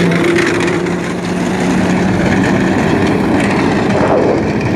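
A vehicle engine running loudly and close, a steady hum under heavy noise. The hum fades out about two and a half seconds in.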